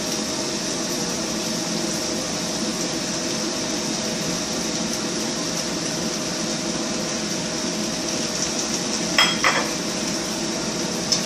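Bok choy and mixed vegetables stir-frying in a pan: a steady sizzle, with a spatula clinking against the pan a few times about nine seconds in and once near the end.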